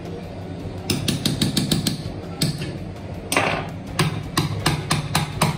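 Small hammer tapping repeatedly on a planetary mixer's gear housing, driving the replacement gear up onto its shaft. The taps start about a second in, come several a second, and have a few harder blows in the middle.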